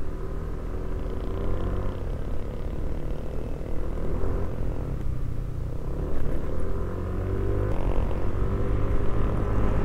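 Yamaha NMAX 155 scooter's single-cylinder engine running under way, under a steady rumble of wind and road noise. Its pitch climbs between about five and eight seconds in as the scooter speeds up.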